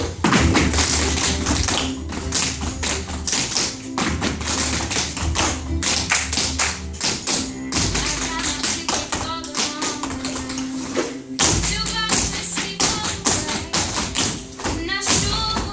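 Tap shoes of a group of dancers striking a wooden floor in quick, rhythmic runs of taps, in step with recorded music that has a steady bass line.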